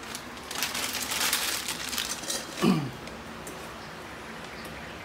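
A plastic packet crinkling and crackling as it is crumpled in the hand for about two seconds. It is followed near the middle by a brief low vocal sound that falls in pitch.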